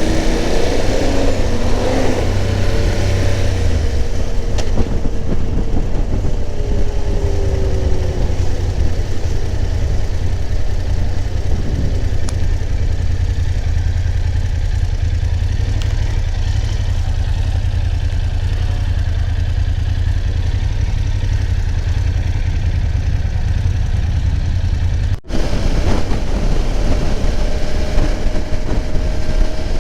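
Motorcycle engine and wind rush while riding at road speed, a steady low drone with the engine pitch gliding up and down in the first few seconds. It cuts out for an instant about 25 seconds in, then goes on with a faint tone rising slowly.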